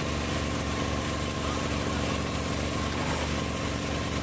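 Engine of a rail-cutting grinder running steadily at an even speed.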